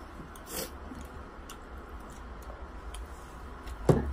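A person chewing a mouthful of spicy noodles, with a sharp knock near the end, over a low steady rumble.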